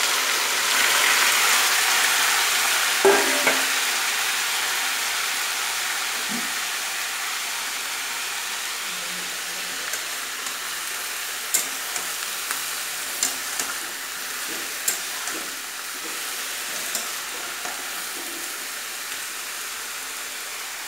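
Boiled green jackfruit pieces sizzling as they fry in hot mustard oil in a metal kadai, loud at first and slowly dying down. A metal spatula stirs them, with several sharp taps against the pan a little past halfway.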